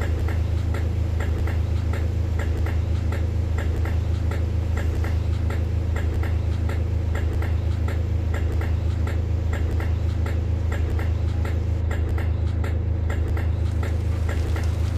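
Class 375/3 Electrostar electric train's unexplained 'weird sound': a steady low hum with a regular ticking, about three ticks a second.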